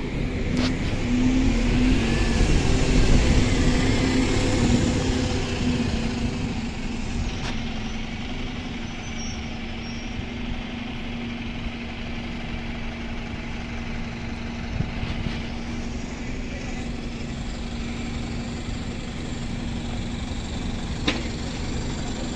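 Single-decker bus with a burst turbo exhaust driving away, a steady droning note over engine and traffic noise, loudest in the first few seconds; the note comes from exhaust escaping at the burst turbo pipe.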